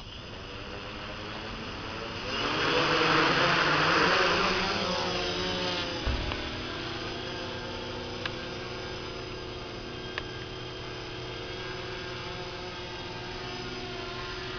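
V-tail multirotor drone's electric motors and propellers spinning up, loud and rushing for a few seconds as it lifts off, then settling into a steadier whine of several tones as it flies. There is a single thump about six seconds in.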